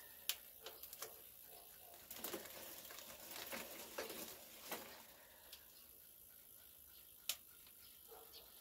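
Bicycle chain and rear hub turned by hand with the rear wheel lifted: faint, irregular clicking and ticking, denser in the first half and with one sharper tick near the end, as the freshly sprayed chain grease is worked in.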